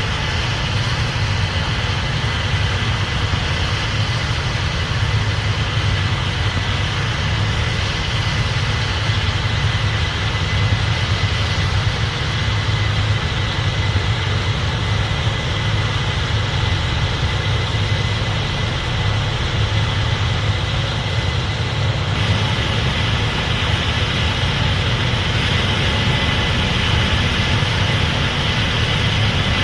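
Case IH 8250 Axial-Flow combine running steadily while harvesting corn: a continuous low engine drone with machinery noise over it and a thin, steady high whine.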